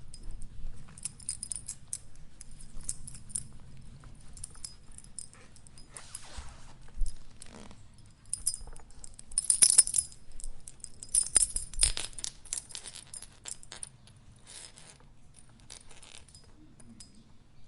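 Dog collar jingling in irregular bursts of clinking, loudest a little past the middle.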